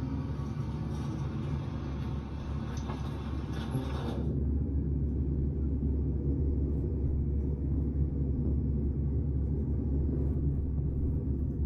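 Recorded bus-interior noise, a steady engine rumble with road hiss, heard through AirPods Max headphones from in-ear binaural mics. About four seconds in the upper sound cuts out sharply, leaving mostly the low rumble, as the headphones switch from off mode to active noise cancellation.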